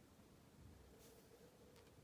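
Near silence: room tone, with faint pencil strokes on paper, once about a second in and again near the end.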